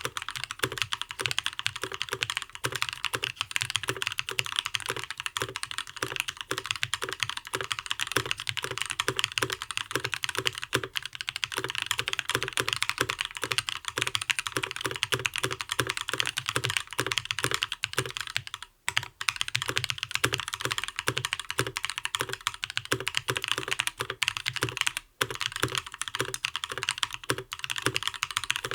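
Custom mechanical keyboard with lubed Gazzew Linear Thock linear switches, an aluminium plate, case foam and PBT keycaps, typed on fast and steadily: a dense run of keystrokes, broken by two brief pauses, about two-thirds and seven-eighths of the way through.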